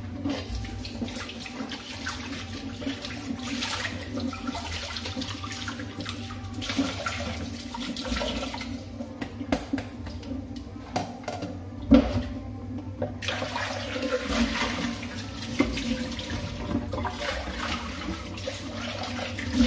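Kitchen tap running and splashing into a steel sink while beans are rinsed by hand, with small clatters of handling throughout and one sharp knock about twelve seconds in.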